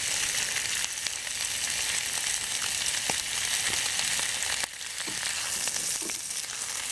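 Sliced octopus and vegetables (onion, celery, peppers, ginger) sizzling in hot oil in a pan, with scattered light clicks of stirring. The sizzle drops briefly a little past halfway, then carries on.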